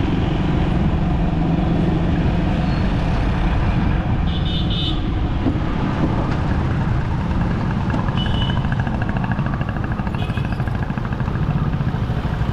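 City road traffic: a steady mix of car, truck and motorcycle engines and tyre noise, with short horn toots about four and a half seconds in and again near eight and ten seconds.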